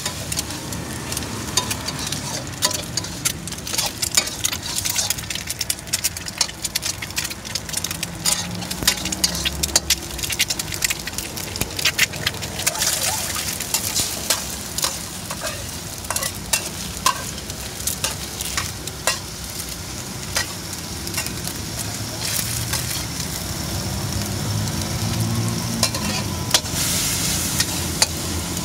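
Food sizzling in a hot steel wok while a metal spatula stirs and scrapes it, with frequent sharp clanks of metal on metal over a steady frying hiss.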